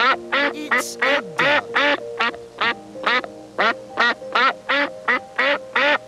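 Duck quacking in a quick, regular series, about three quacks a second, over steady background music.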